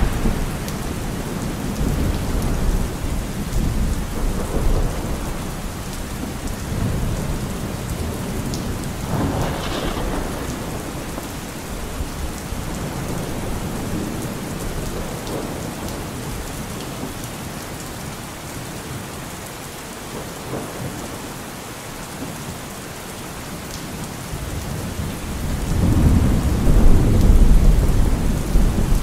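Thunderstorm: steady rain with rolling thunder. A sharper crack about nine seconds in, a quieter lull in the middle, then a long, loud rumble near the end.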